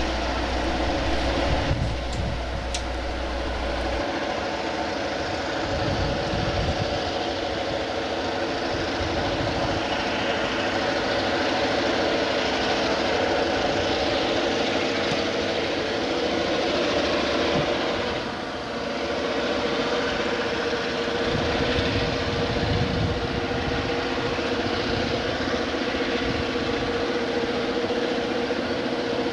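Conrail diesel-electric freight locomotives working under throttle as the train pulls away, a steady engine drone with a constant hum in it.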